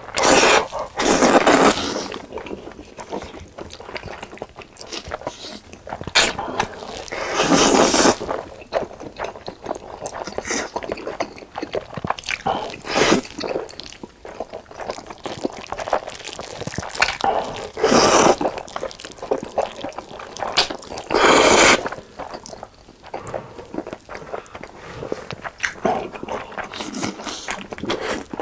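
Close-miked eating of black bean noodles: about half a dozen loud, long slurps spread through, with wet chewing and smacking clicks in between.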